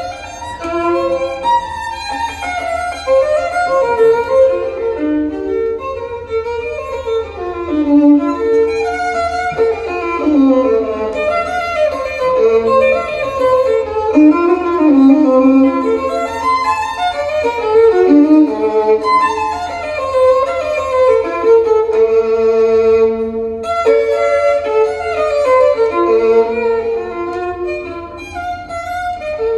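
Violin music played back from an LP through a hi-fi system's horn loudspeakers and heard in the listening room, a flowing melody over a steady low hum.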